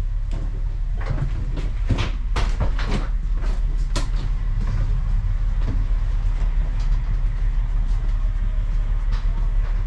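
SU45 diesel locomotive with a steady, deep engine rumble, overlaid by irregular metallic knocks and clanks.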